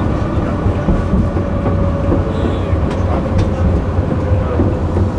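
Tram running along its tracks, heard from inside the car: a steady low rumble with a faint steady whine, and a few clicks from the wheels on the rails.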